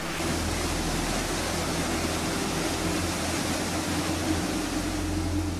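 A steady rushing noise with a low hum underneath.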